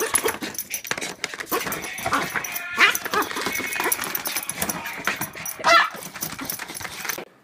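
Small dog whining and yipping in short high cries, with scratching and rustling as it paws at a paper card.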